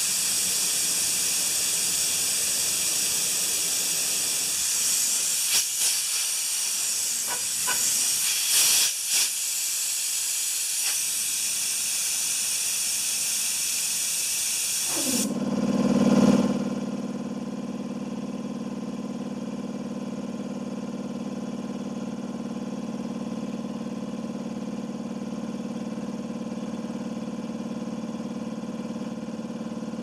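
Compressed air hissing steadily out of the tanks, then about fifteen seconds in the hiss cuts off and the electric wheelbarrow compressor's motor and pump start with a swell and settle into a steady run as it cycles back on.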